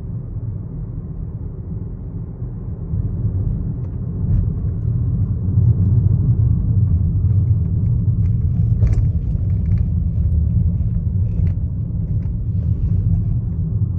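Low rumble inside the cabin of a 12th-generation Toyota Corolla Altis, louder from about four seconds in, with scattered light clicks and knocks, the sharpest about nine seconds in: the abnormal steering-wheel noise the car is making.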